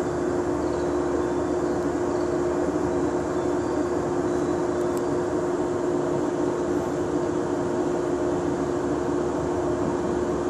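A 103 series electric train standing at the platform with a steady hum and one constant tone from its running equipment.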